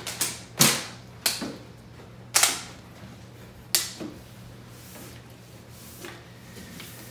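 A quick run of sharp knocks and clacks from things being handled and set down on a table, about six or seven in the first four seconds, then quiet handling.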